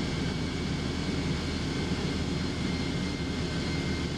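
Steady jet aircraft noise with a faint, steady high-pitched whine running through it.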